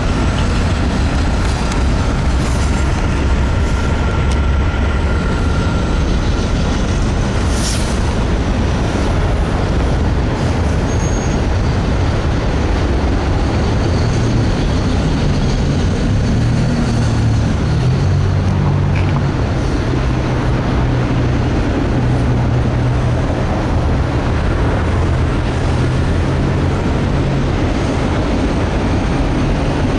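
Freight train cars rolling past in a continuous steady rumble, with a low steady hum joining in about halfway through.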